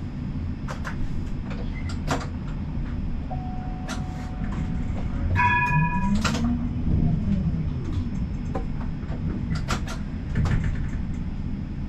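Siemens Combino tram running, heard from inside: a steady low rumble of wheels on rails with scattered clicks and knocks. A hum rises and then falls in pitch midway, and a short ringing chime sounds about five seconds in.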